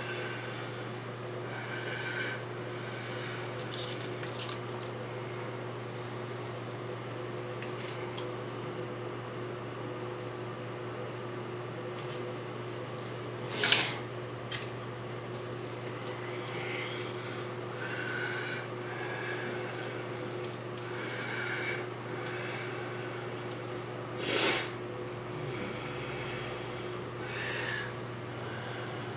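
Faucet parts being handled and worked at the sink: scattered soft clicks and rustles over a steady low hum, with two sharp clacks, one about halfway through and one near the end.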